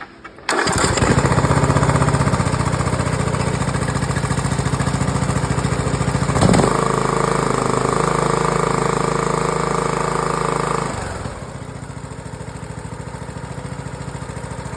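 Briggs & Stratton OHV Intek lawn mower engine starting about half a second in and running steadily, with a click and a change in tone about six and a half seconds in and a drop to a quieter speed about eleven seconds in. It starts and runs freely now that the faulty cam and compression release that made it hard to crank have been replaced.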